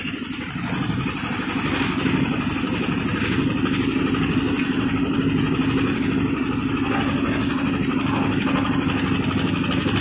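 Concrete mixer's engine running steadily as the drum turns, with a strong steady hum. The drum is being rinsed out with water at the end of the pour.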